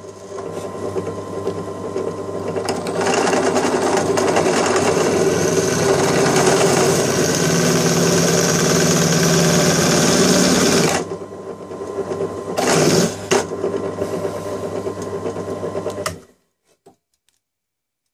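Bench drill press running a 9 mm twist bit into a soft, non-hardened steel ball bearing held in lubricated pliers: a steady motor hum with a harsh metal-cutting grind. The grind is loudest for several seconds in the middle, eases off, and the press shuts off about three-quarters of the way through.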